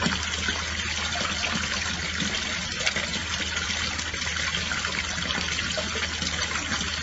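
Water running steadily from a tap, with a low steady hum underneath.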